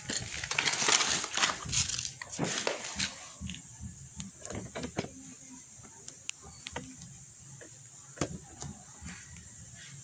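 Stiff plastic blister packs of padlocks crackling and crinkling as they are handled, loudest in the first three seconds, followed by scattered light clicks and taps as the packs are set down.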